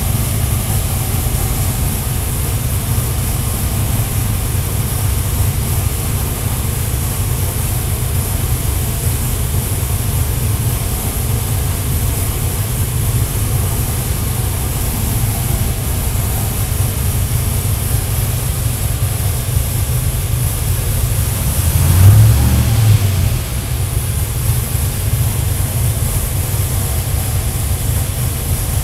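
LSX 448 V8 with a Whipple 4.0 L supercharger idling on an engine dyno while it warms up, with a choppy rumble from its big camshaft. About three-quarters of the way through it briefly revs up, louder for about a second, then drops back to idle.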